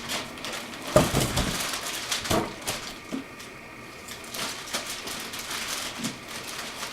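Packaging being handled while a guitar amp combo is unboxed: a thump about a second in, another knock a little over a second later, and scraping and rustling in between.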